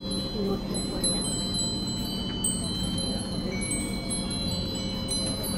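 Several hanging metal furin (Japanese wind bells) ringing at once. Clear high tones keep sounding and overlap as new strikes come in, over a steady low background hum.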